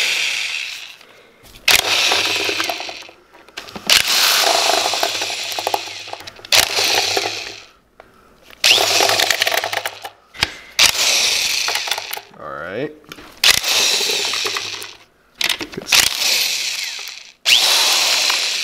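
Cordless drill spinning a long chain of socket extensions in short runs of a second or two, about eight times over, backing out intake manifold bolts. One run rises in pitch as the drill speeds up.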